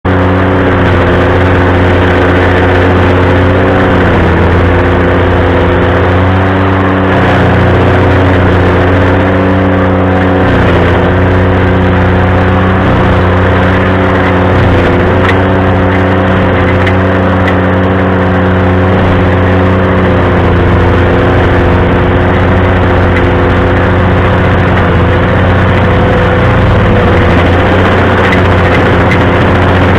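Ventrac compact tractor's engine running steadily while driving its stump grinder attachment. Its pitch dips briefly a few times, around 4, 10 and 15 seconds in, as the engine takes load.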